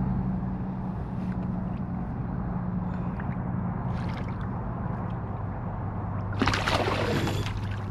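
Small hooked fish splashing and thrashing at the surface beside a kayak, a brief splash about four seconds in and a longer, louder flurry near the end, over a steady low hum.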